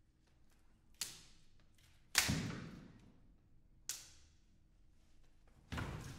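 Dry branches and twigs being bent and snapped by hand: four sharp cracks a second or two apart, the second, a little over two seconds in, the loudest, each dying away over about half a second, with faint small cracks between them.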